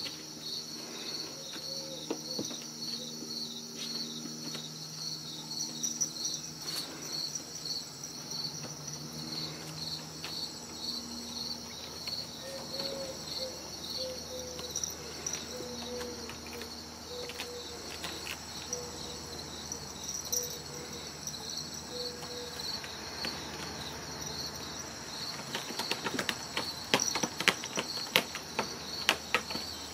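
Insects chirping steadily in a fast, even pulse. Near the end comes a cluster of sharp scratches and knocks.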